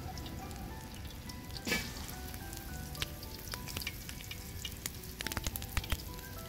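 Marinated chicken hearts sizzling in hot oil in a wide aluminium pan over a wood fire, with steady hissing and frequent crackles as more pieces are laid in. The crackling gets denser and louder about five seconds in.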